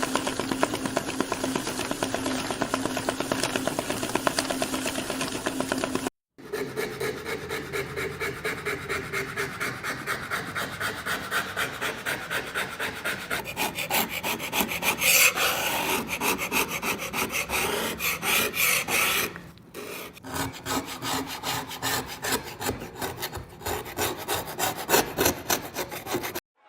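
Rapid, rhythmic rasping strokes of something hard being rubbed or filed back and forth. The sound breaks off in a short silence about six seconds in, then resumes.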